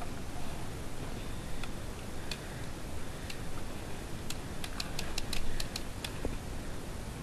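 Paintball markers firing: a few scattered sharp pops, then a quick string of about ten shots over roughly two seconds, starting about four seconds in.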